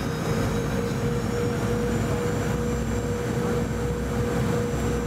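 Cabin noise of a Boeing 717-200 on final approach, heard beside its rear-mounted Rolls-Royce BR715 turbofan: a steady rumble with a constant hum and a thin high whine.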